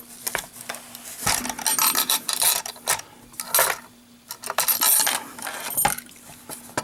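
Master Lock M5 padlock being handled: irregular metallic clicks, rattles and rubbing.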